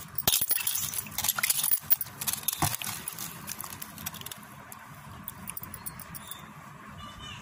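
Hands swishing cut spine gourd pieces about in water in a steel bowl: splashing, with the pieces knocking against each other and the bowl. It is busiest in the first three seconds, then lighter and more scattered.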